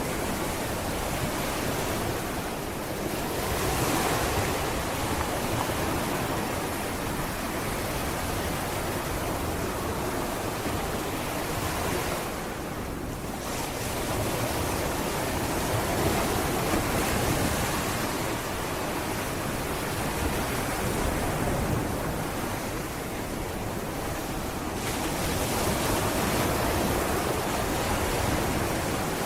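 Sea waves breaking and washing up on a beach, a continuous rushing surf that swells and eases every several seconds.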